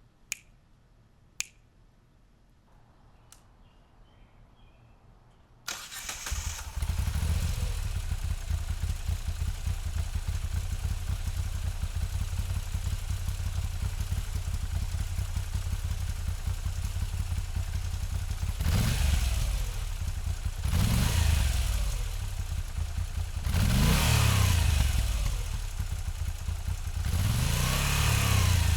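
Moto Guzzi V7 850's air-cooled transverse V-twin, heard from behind the exhaust. After a couple of sharp clicks the engine starts about six seconds in and settles into a steady idle. Near the end it is revved four times, each rev climbing and falling back.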